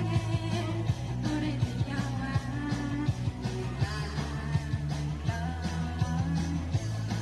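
Upbeat band music with a steady drum beat and a sustained bass line under a melody.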